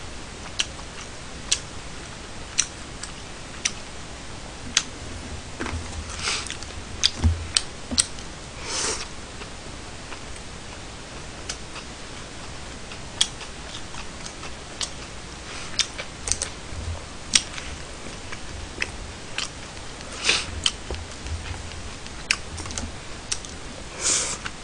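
Eating sounds from a meal in plastic takeout containers: wooden chopsticks clicking and tapping against the containers in scattered sharp clicks, with a few short louder breathy noises as mouthfuls are taken.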